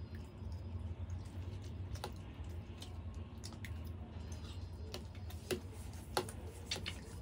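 Close-miked eating of macaroni: scattered sharp, wet clicks of chewing and of a metal fork scooping pasta from a steel plate, a couple of them louder in the second half.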